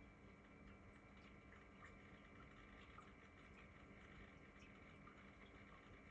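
Faint steady hum of a miruto mona automatic pet water fountain's pump, with water trickling and small irregular ticks throughout. The ticking and grinding is the fountain's abnormal noise, a sign of a failing pump.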